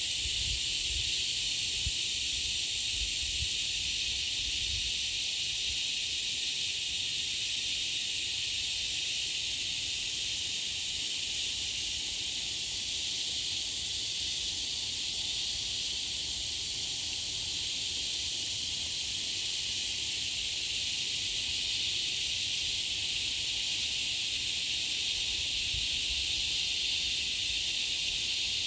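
Steady, high-pitched insect chorus, with a higher insect call pulsing evenly about twice a second over it.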